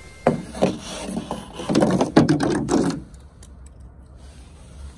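A small die-cast toy car clattering and knocking against a hard plastic slide as it is handled, a quick run of clicks and knocks for about three seconds that then dies away.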